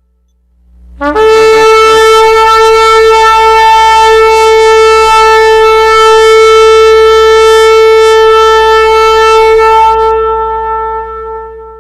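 A horn sounding one long, loud held note, starting about a second in, staying on a single pitch for some nine seconds, then fading away near the end.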